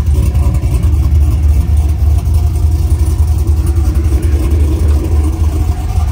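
Cammed 370 ci LS V8 running at a steady engine speed through long-tube headers and a dual 3-inch exhaust. It makes a loud, steady low drone with no revving.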